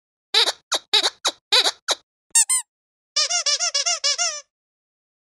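Squeaky dog toy squeezed repeatedly: about six short squeaks in the first two seconds, a brief higher squeak, then a quick run of about ten squeaks, each rising and falling in pitch.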